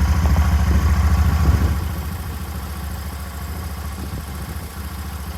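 Royal Enfield Shotgun 650's 648cc parallel-twin engine running just after a push-button start: a fast, even exhaust beat, louder for the first two seconds, then settling to a steady idle.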